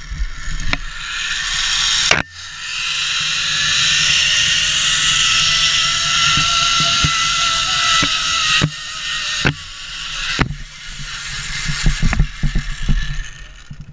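Zipline trolley pulley running along the steel cable: a steady hiss with a whine that rises slightly in pitch and holds for several seconds, then fades, followed by a few sharp clicks. Low rumble of wind on the microphone underneath.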